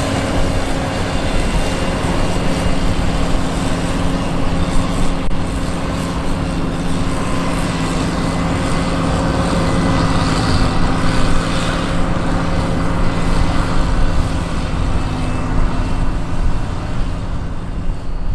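John Deere 9510 combine running steadily while harvesting wheat: the 240 hp diesel engine's steady hum mixed with the whirring noise of the threshing and header machinery.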